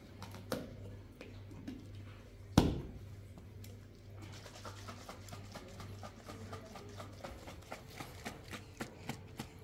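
A knock about half a second in and a sharper, louder knock about two and a half seconds in, followed by a run of light, irregular taps and clicks, several a second.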